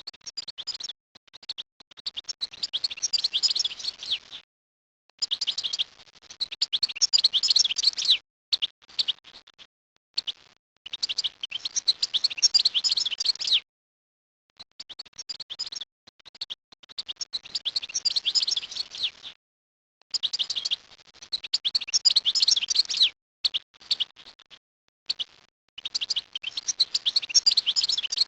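A songbird singing in rapid, high, twittering phrases of about two to three seconds, separated by short pauses.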